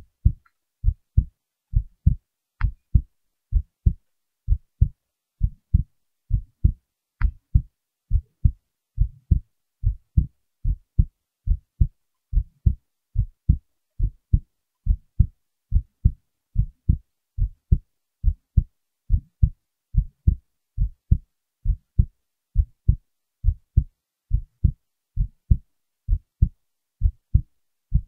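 A heart beating, heard as steady paired lub-dub thumps, a little over one beat a second. Two faint clicks come about three and seven seconds in.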